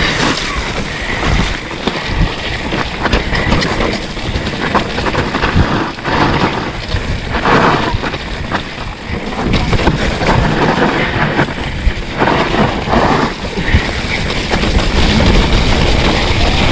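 Mountain bike riding fast down a muddy dirt trail, with wind buffeting the on-bike camera microphone over the steady rumble of the tyres and frequent knocks and rattles from the bike over bumps.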